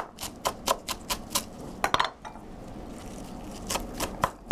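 Chef's knife chopping cilantro on a wooden cutting board: quick blade knocks at about four a second, a pause of about a second, then a few more knocks near the end.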